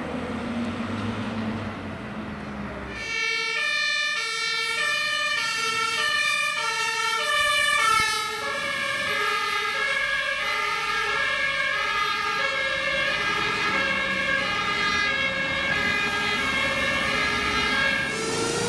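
German two-tone fire-engine siren (Martinshorn) switching back and forth between two pitches. It starts about three seconds in, over traffic and engine noise. From about eight seconds in, a second two-tone siren overlaps slightly out of step.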